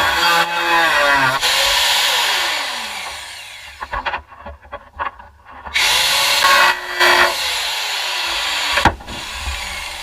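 Handheld angle grinder working on car body metal in two long bursts. After each burst its pitch falls as it spins down, and there is a short break with a few clicks in between. A sharp knock comes near the end.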